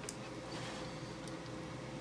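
Quiet room tone with a faint steady hum and a few light clicks.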